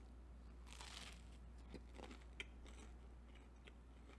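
Faint sound of a big bite being torn from a thick, soft waffle about a second in, followed by a few soft chewing clicks.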